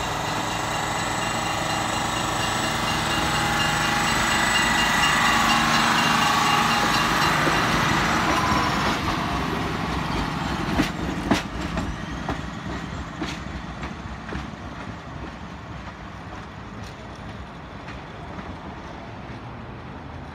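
Self-propelled Budd diesel rail car's engine running under power with a steady whine, growing louder as it approaches and passes close by. About halfway through, the wheels give a few sharp clicks over the rail joints, then the sound fades as the car runs away.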